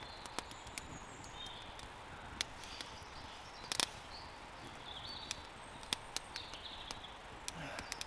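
Campfire of damp wood crackling: sharp, irregular pops and snaps over a low hiss, the loudest a quick double pop about four seconds in.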